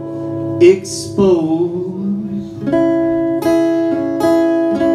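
Live acoustic guitar and a man's singing voice: a sung phrase over ringing guitar in the first half, then, from about three seconds in, full strummed chords struck in a steady rhythm.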